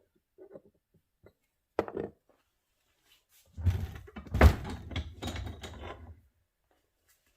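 Small metal parts being handled and rummaged through on a workbench. A few light clicks come first, then a brief clatter, then about two and a half seconds of clattering and thumping, loudest at one heavy thunk about four and a half seconds in.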